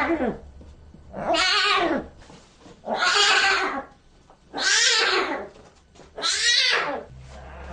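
White lion cub mewling: four short, meow-like calls about a second and a half apart, each rising and then falling in pitch.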